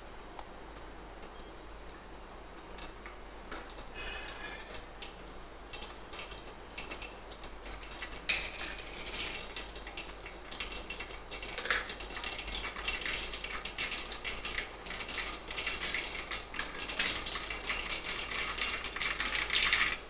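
Mustard and cumin seeds popping in hot oil in a steel bowl covered with a steel plate: a rapid, irregular crackle of sharp ticks that grows denser and louder from about eight seconds in.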